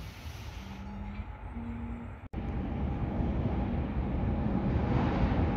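A train's rumble in an underground station as it comes through the tunnel, growing steadily louder. Before a cut about two seconds in, there is a quieter low rumble with a faint hum.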